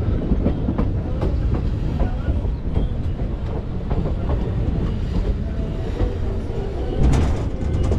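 Indian Railways sleeper coach running on the track, its wheels rumbling steadily and clicking over rail joints, heard at an open window with a rush of passing air. The noise swells briefly about seven seconds in.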